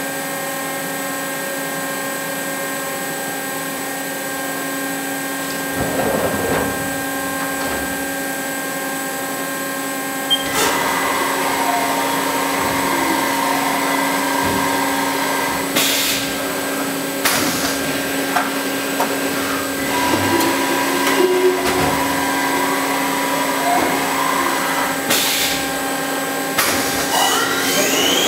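Haas SL-30T CNC lathe running under power: a steady hum with several fixed tones from its pumps and fans. About six seconds in there is a brief sliding rumble as the enclosure door is opened. This is followed by clicks and short servo whirs as the turret moves, and near the end a rising whine as the spindle begins to spin up.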